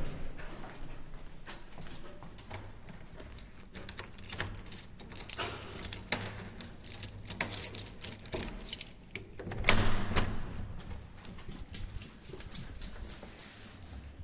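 A bunch of keys jingling and clicking as they are handled and worked in a front-door lock, with a louder thud about ten seconds in.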